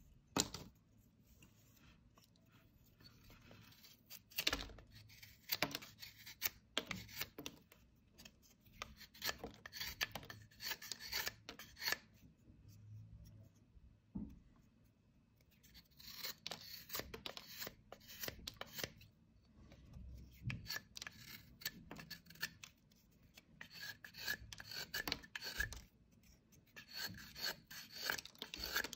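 Carving knife shaving thin wooden strips by hand: runs of short, dry scraping strokes in groups, with pauses between them.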